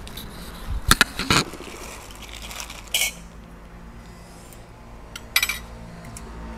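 A few scattered clinks and knocks over a low steady background hum. A loud pair of knocks comes about a second in, then sharper clinks at about three seconds and again past five seconds.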